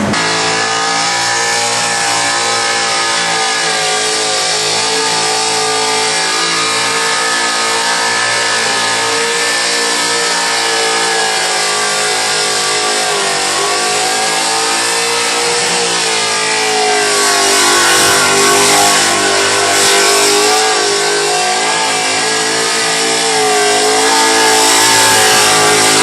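Supercharged 253 cubic inch Holden V8 running at sustained high revs, its pitch wavering up and down. It grows louder about two-thirds of the way in and again near the end.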